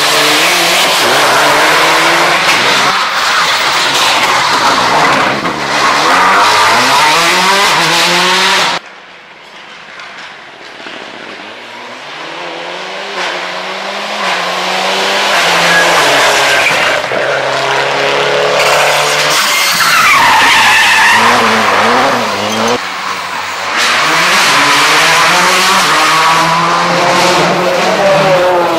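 Rally cars at full throttle, engines revving up and down through gear changes, a Mitsubishi Lancer Evolution's tyres skidding as it slides through a tight corner. About a third of the way in the sound drops suddenly to a distant car that grows steadily louder as it approaches, then another car passes loud and close near the end.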